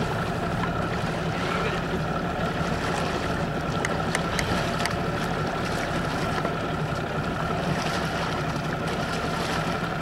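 Wind buffeting the microphone: a steady rush with a flickering low rumble over open water, with a few faint clicks about four to five seconds in.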